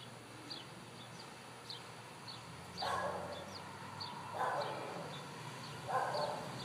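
A dog barking three times, about a second and a half apart, starting about three seconds in, over faint high chirps that repeat throughout.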